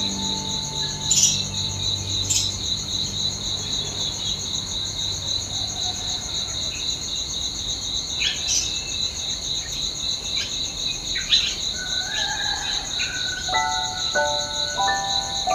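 Steady, evenly pulsing high chirring of insects, a cricket-like chorus, with a few brief clicks. Near the end a run of short melodic notes of background music comes in.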